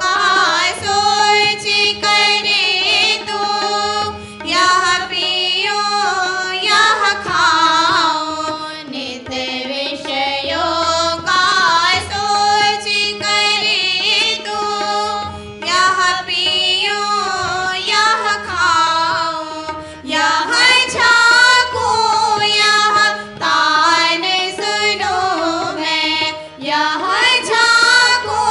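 Women's voices singing a Hindi devotional bhajan with long, gliding held notes, accompanied by a harmonium and tabla.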